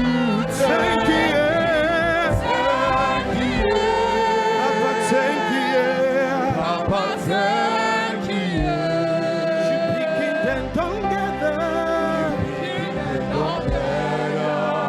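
Live gospel worship music: sung voices with vibrato over instrumental accompaniment.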